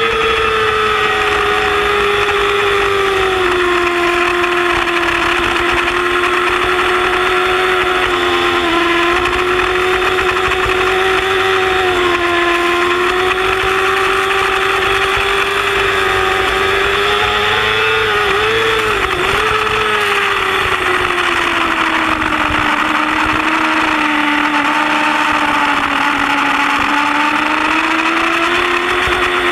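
Yamaha R6 sportbike's inline-four engine running hard at high revs on track, its pitch drifting slowly up and down, with a brief dip and wobble a little past halfway, over a steady rush of wind and road noise.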